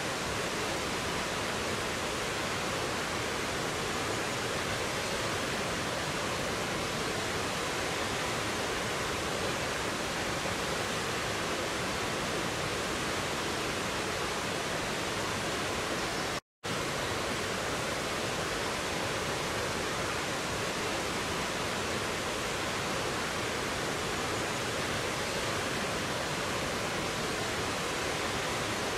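Rocky mountain stream rushing over boulders and a small waterfall: a steady, even rush of water. The sound cuts out for a split second a little past halfway.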